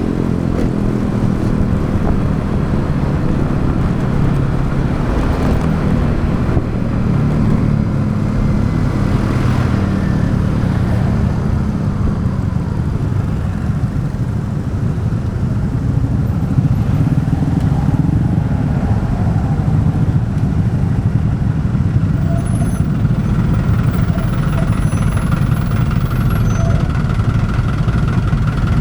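Motorcycle engine running while riding in traffic, heard from close on the bike. Its pitch falls over the first few seconds as the bike slows, then it runs fairly steadily.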